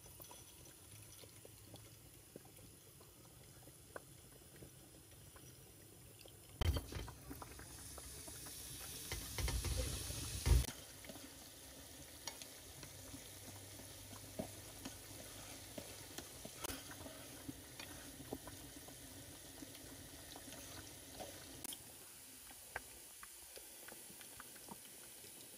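Chili sate sauce, chopped chillies in oil, sizzling gently in a frying pan while being stirred with chopsticks. Louder noise breaks in sharply about seven seconds in and again from about nine to ten and a half seconds in.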